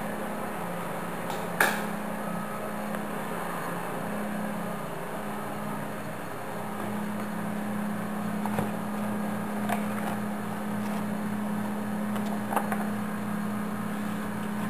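A steady low hum with four sharp clicks, the loudest about one and a half seconds in.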